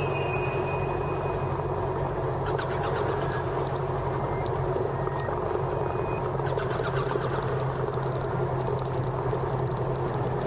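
Single-engine Cessna's piston engine and propeller running steadily at taxi power, heard from the cockpit. A scatter of faint light clicks in the second half.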